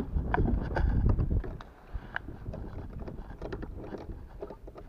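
Handling knocks and rustles as a landing net holding a fish is brought onto a plastic kayak's deck: scattered sharp clicks and taps. Low wind rumble on the microphone through the first second and a half, then only the taps.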